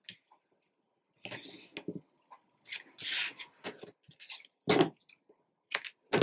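Narrow 6 mm Stix2 double-sided tape being pulled off its roll and pressed along the edge of a paper sheet. After about a second of quiet come a series of short scratchy bursts, the longest about three seconds in.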